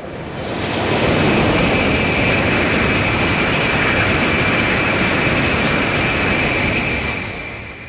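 Tokaido Shinkansen high-speed train passing at speed: a loud rushing noise of wheels and air that swells up within the first second, holds steady, then fades near the end, with a steady high whine over it.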